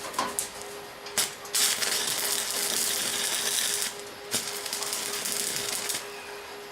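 Electric welding arc crackling and hissing in two bursts of about two seconds each, with a few sharp clicks and a steady hum underneath.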